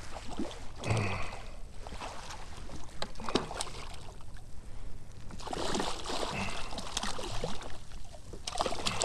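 Hooked red drum thrashing and splashing at the water's surface beside a kayak as it is played to the landing net, in irregular bursts of splashing.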